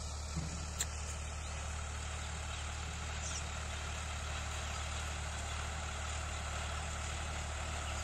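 Tractor engine running steadily as it ploughs a distant field, a low drone. A single short click about a second in.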